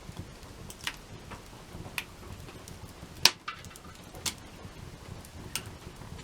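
Wood fire crackling in a campfire, with a steady low hiss and five sharp pops about a second apart, the loudest about halfway through.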